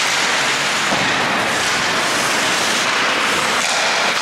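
Steady, even hiss of ice-rink noise during hockey play.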